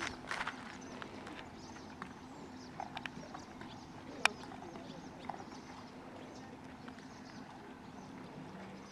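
Scattered footsteps on a gravel path, with a sharper click about four seconds in, over a faint steady low hum.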